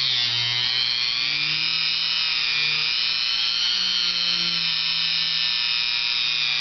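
Dremel rotary tool running on low speed with a polishing disc and compound against the steel of an AK-style rifle hammer: a steady motor whine whose pitch wavers slightly. It is the polishing stage that smooths the hammer to cure hammer snag.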